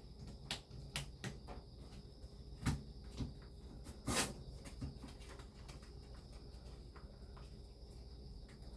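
A handful of short knocks and clicks in the first half, the loudest two a little under three and a little over four seconds in, over a steady high-pitched hum that runs on after them.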